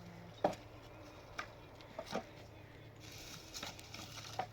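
A few scattered knocks and clicks, about five spread over a few seconds, over a faint steady hum.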